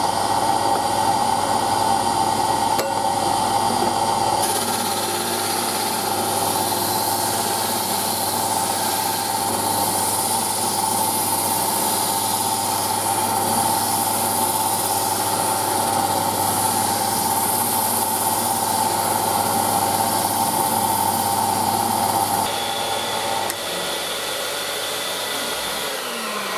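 Mill-drill spinning a homemade sanding drum, with a Vax vacuum running for dust extraction, while a piece of wood is sanded against the drum. Steady machine noise with a held tone and a high hiss. About four seconds before the end it drops in steps as the machines are switched off, and a motor winds down with falling pitch at the very end.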